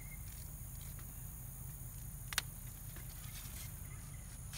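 Zinnia stems being handled and cut: faint rustling and one sharp snip about halfway through, over a steady high hiss and a low hum.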